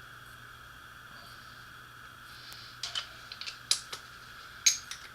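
Bolts and hand tools clinking against the transfer case housing: a handful of sharp metallic clicks about three seconds in and one more near the end, over a faint steady hum.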